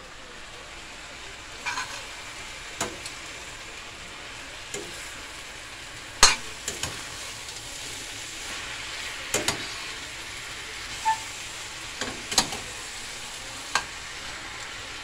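Cabbage frying in oil in a stainless steel pan, a steady sizzle, while it is stirred with a utensil that clicks and knocks against the pan every second or two, loudest about six seconds in.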